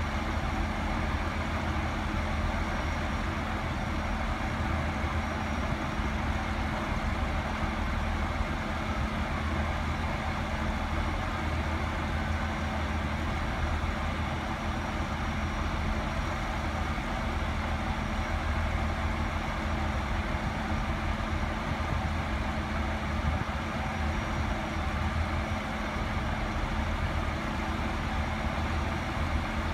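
Class 142 Pacer diesel multiple unit and its coupled Class 153 standing at the platform with their underfloor diesel engines idling steadily, an even low hum that does not change.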